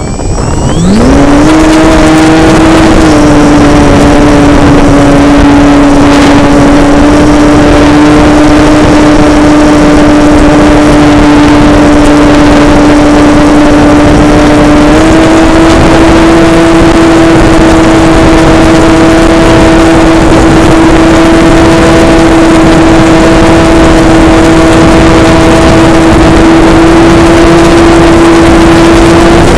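Model airplane's motor and propeller spinning up to speed about a second in, then a loud steady high drone at flying throttle, dipping a little in pitch a few seconds in and rising slightly about halfway through.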